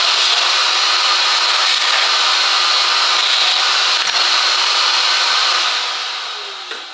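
Shop vacuum running with a high whine, sucking loosened rust scale out of a piston pump's housing ports through its hose. Near the end it is switched off and winds down.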